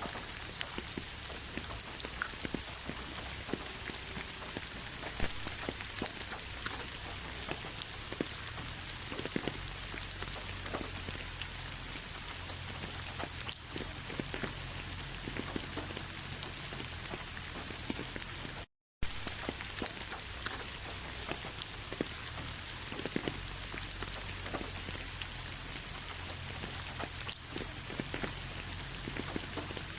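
Steady rain falling, with the patter of individual drops ticking through an even hiss. The sound cuts out to silence for a split second about two-thirds of the way through.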